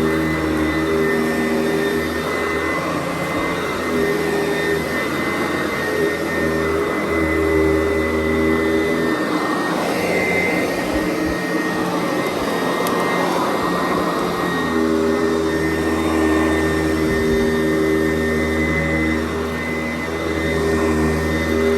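A Sanitaire SC889B commercial upright vacuum running steadily while it is pushed over carpet. Its hum breaks up and wavers for several seconds in the middle, then settles back to a steady tone.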